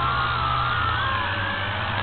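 WLToys V666 quadcopter's motors and propellers whining, several close pitches wavering up and down against each other as the motor speeds adjust, over a steady low hum. Heard close up from the quad's own onboard camera.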